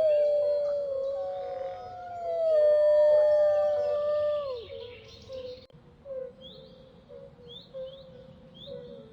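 Gray wolves howling: a long, slowly falling howl, then a second that rises and sinks again, with higher howls overlapping, all dying away about four and a half seconds in. After that, birds chirp in a steady repeating pattern.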